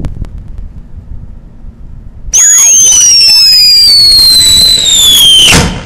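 Ground whistler firework going off: a few faint crackles, then a loud, shrill whistle about two seconds in that slides slowly down in pitch for about three seconds and cuts off suddenly.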